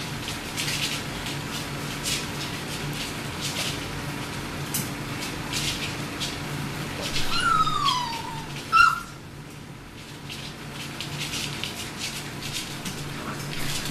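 Labrador puppies shuffling and rustling on blankets over a steady low hum; about seven seconds in a puppy gives one falling whine, followed a second later by a short, sharp yelp, the loudest sound.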